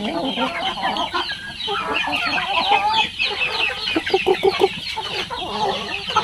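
A flock of young chickens clucking and peeping as they feed, many short calls overlapping continuously, with a run of lower clucks about four seconds in.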